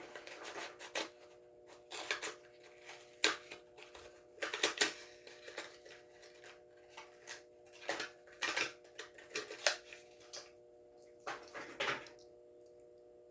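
Plastic blister pack and cardboard backing card of a Hot Wheels die-cast car being handled and opened: irregular crinkles and clicks, stopping about a second before the end.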